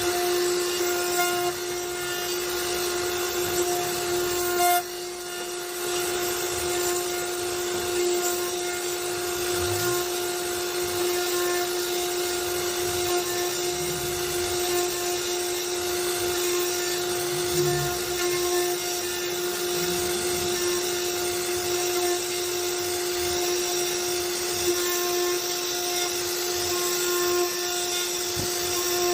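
CNC router spindle running at a steady high whine as the bit cuts into wood, with a hiss of cutting over it, dipping briefly about five seconds in.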